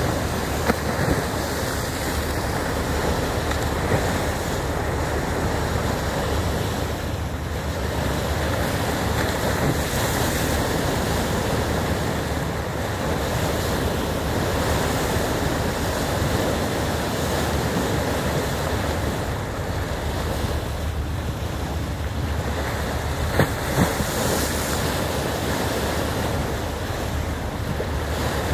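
Steady rushing wash of a moving boat's bow wave along the hull, with wind buffeting the microphone. A few brief knocks stand out, near the start and twice close together near the end.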